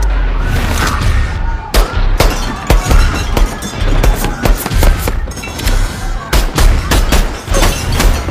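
Film action soundtrack: a string of sharp gunshots and hits, several a second at times, over music with a heavy low bass.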